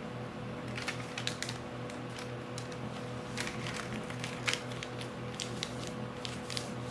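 Paper being folded and creased by hand, giving short crinkles and clicks in scattered clusters, over a steady low drone.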